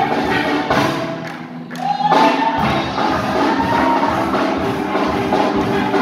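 Live steel pan band playing an upbeat number backed by a drum kit. About a second in, the bass and drums drop out briefly, then the full band comes back in.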